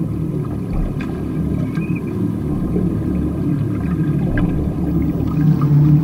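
Steady low underwater rumble with a few faint, scattered clicks.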